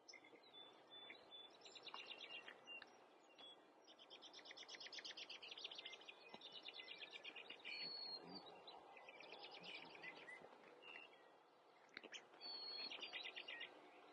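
Faint songbirds singing, several repeated high trills and chirps overlapping, over a faint background hiss.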